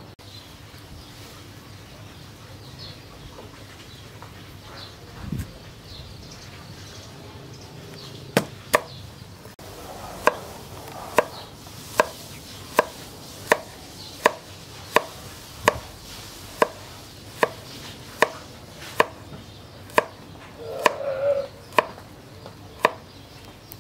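Steel cleaver slicing a carrot on a wooden cutting board: sharp knocks of the blade on the board, about one every 0.8 seconds, beginning about a third of the way in.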